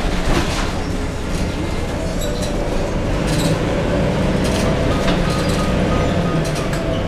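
Interior sound of a 2000 Neoplan AN440 transit bus on the move: the Cummins ISM inline-six diesel gives a steady, bassy drone. Light rattles and clinks come from the bus's fittings.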